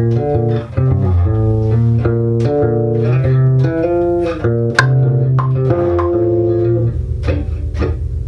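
Electric bass guitar played through a Trace Elliot Elf micro bass amp head: a short melodic line of plucked notes, a few struck harder than the rest, with a strong midrange.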